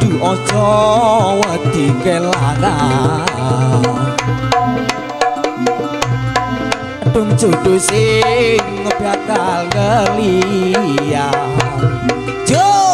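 Javanese reog campursari ensemble playing live, with kendang hand-drum strokes keeping a steady rhythm and deep drum thuds falling at regular intervals. Under them run sustained pitched tones and a wavering melody line.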